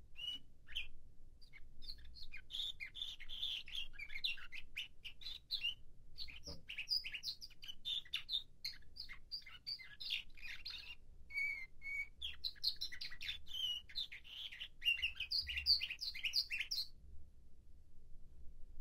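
A nightingale-song canary singing a long, continuous song of rapid chirps, trills and short whistled notes, stopping about two seconds before the end. The bird is in its tertip period, still setting the order of its song tours.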